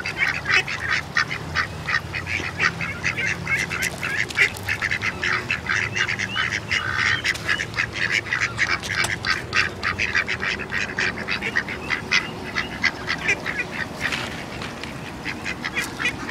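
Ducks quacking in quick, short calls, several a second, thinning out near the end.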